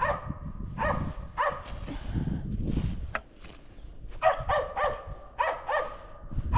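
Squirrel dog barking over and over at a tree, a treeing bark that signals a squirrel up in it. The barks come in a steady string, pause briefly around the middle, then come faster.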